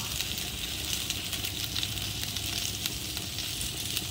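Vegetables sizzling on a hot grill: eggplant, squash, peppers and onion on the grates and in a perforated grill basket. A steady hiss with frequent small pops and crackles, over a low rumble.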